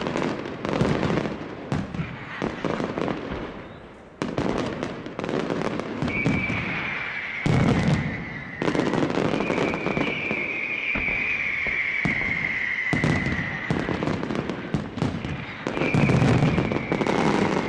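Fireworks display: repeated bangs and crackling bursts. A long high whistle that sinks slightly in pitch runs through the middle and comes back near the end.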